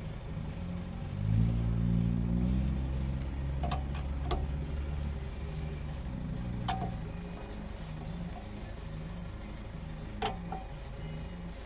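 Car rolling slowly with a rhythmic knock from a wheel, about one and a half beats a second, plus a few sharper metallic knocks. The owner traces the knock to runout from a wheel spacer held by only one bolt, because the other bolts bottom out before tightening.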